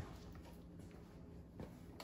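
Quiet room tone with a single sharp knock right at the start and a softer knock about a second and a half in.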